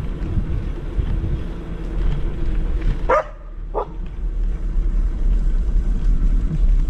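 Wind buffeting the GoPro's microphone and rumbling low while the electric scooter is ridden. About three seconds in, two short, sharp calls come through, roughly 0.7 s apart.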